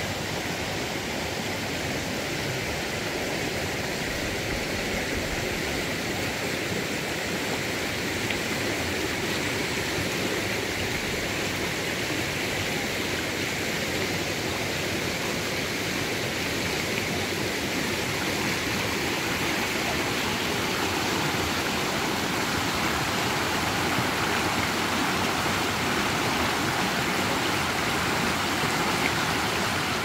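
River water rushing steadily, an unbroken hiss of flowing water that grows a little louder over the stretch.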